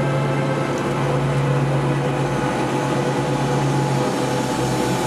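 Steady drone of the engine of the aircraft filming from the air, a low hum with several steady tones above it and no breaks.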